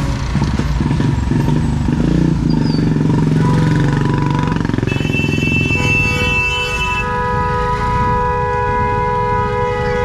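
Busy street traffic: a motorcycle engine running close by, then a vehicle horn sounding one long continuous blast from a little past the middle until the end.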